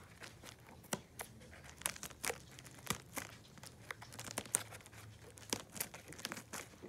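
Scissors snipping into a plastic bubble mailer: a run of short, irregular snips and crinkles of the plastic.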